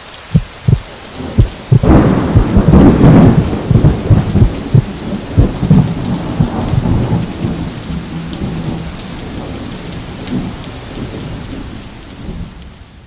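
Thunderstorm: steady rain with rolling, rumbling thunder, heaviest about two to four seconds in, then easing to mostly rain before fading out near the end.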